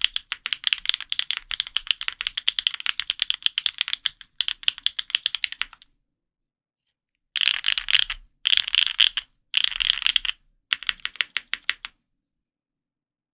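Typing on an F1-8X custom mechanical keyboard with Krytox 205g0-lubed Gateron Raw switches, an aluminum plate and GMK keycaps: steady keystrokes that stop about six seconds in, then after a short pause four quick, dense bursts of keypresses, then the typing stops.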